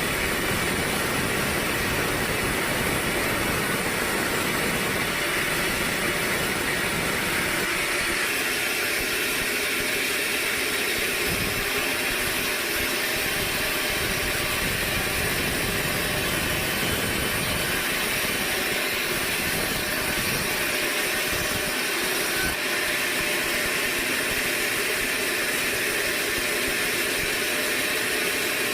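Sawmill machinery running steadily: a continuous even mechanical noise with a hissing edge, with no breaks or distinct impacts.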